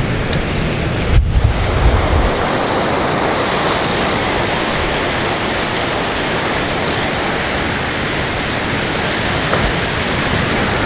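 Surf breaking and washing up a beach, a steady rush of noise, with wind buffeting the microphone for the first two seconds or so.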